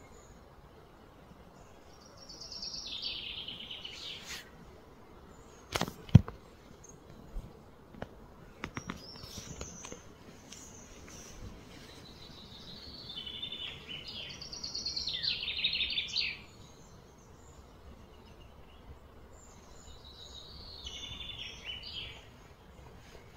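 Outdoor ambience with three bouts of high-pitched, rapidly pulsed animal calling, the middle one the longest. A single sharp knock comes about six seconds in, followed by a few lighter clicks.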